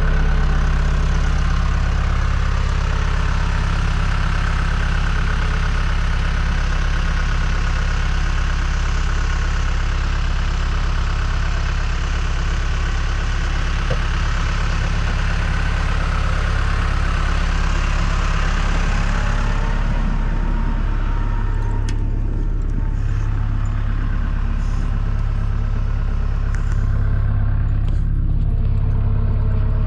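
John Deere 310G backhoe's diesel engine running steadily while plowing snow. The higher, noisier part of the sound drops away about twenty seconds in, leaving the steady engine hum.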